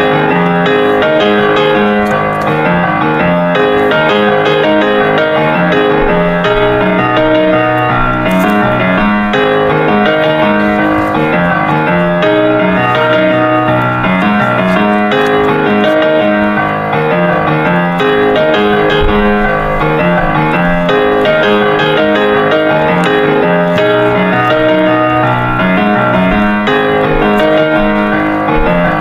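Background piano music playing steadily throughout.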